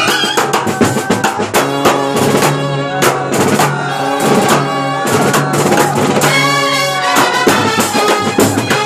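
Kerala band set playing: trumpets and reed horns carry a held melody over fast, dense beats from marching bass drums, side drums and a clashing cymbal.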